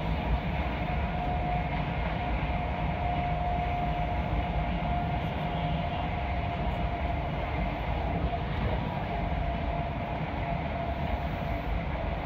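Moving train heard from inside the carriage: a steady running rumble with a constant whine that falls slightly in pitch near the end.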